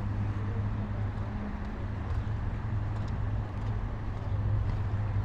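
Steady low rumble of motor traffic, with a constant hum underneath and no distinct single events.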